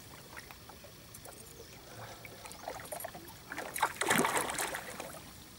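A hooked giant snakehead splashing at the water's surface beside a small boat: a few quiet seconds of water, then a burst of splashing about four seconds in.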